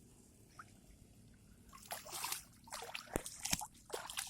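Shallow paddy water splashing and sloshing as children move and play in it, in a string of uneven bursts starting about two seconds in, with two sharp knocks among them.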